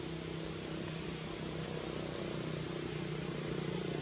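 Steady low mechanical hum, several fixed low pitches, under an even hiss of background noise.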